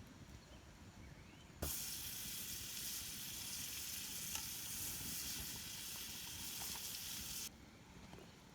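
A steady sizzling hiss starts suddenly with a knock about one and a half seconds in, runs evenly, and cuts off abruptly about six seconds later.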